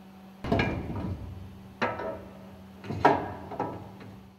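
Metal piston rod support halves being placed and fitted around the piston rod: three knocks, about half a second, two seconds and three seconds in, each with a short ringing, scraping tail, over a low steady hum.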